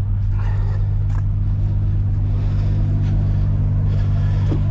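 Scania S770's 16-litre V8 diesel engine idling with a steady deep drone, with a couple of light knocks.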